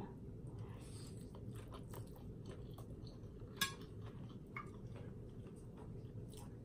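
Faint close-up eating sounds: chewing a mouthful of instant noodles, with small clicks of chopsticks and a metal spoon against the plate, and one sharper click about three and a half seconds in, over a low steady hum.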